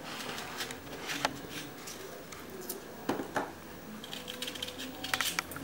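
Kitchen knife slicing onion on a plastic cutting board: scattered knocks and clicks of the blade meeting the board, with a couple of louder knocks about three seconds in and a quick run of taps near the end.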